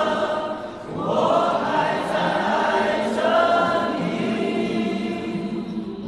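A group of people singing together in unison, with long held notes.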